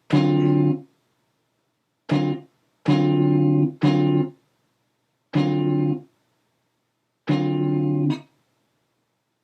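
Chopped slices of a guitar sample played back one at a time in a Maschine sampler: six short guitar snippets, each cut off abruptly, with silent gaps between them.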